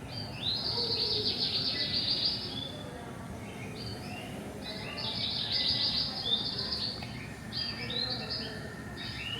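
Songbird singing: a rapid, buzzy trilled phrase, each about one to two seconds long, repeated about four times.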